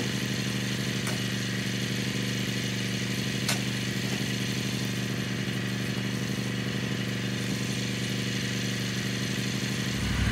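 An engine idling steadily, with a faint knock about three and a half seconds in.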